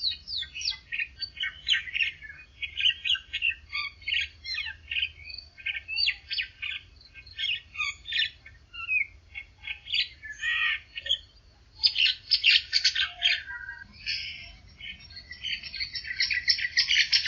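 Dawn chorus of several songbirds: overlapping quick chirps, whistles and trills, with busy bursts of rapid trilling about twelve seconds in and again near the end.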